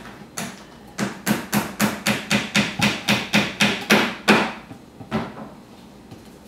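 A fast, even run of sharp knocks, about four a second for some three seconds, ending on the loudest one, with a lone knock before and after.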